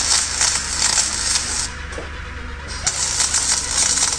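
MIG spool gun welding aluminium: the arc gives a steady crackling hiss, breaks off for about a second near the middle, then strikes again.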